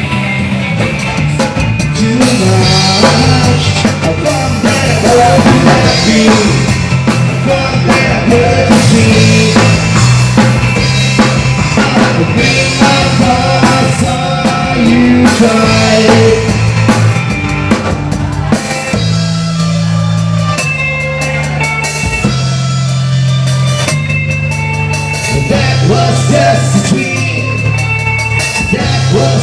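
Live rock band playing with drum kit, bass and vocals.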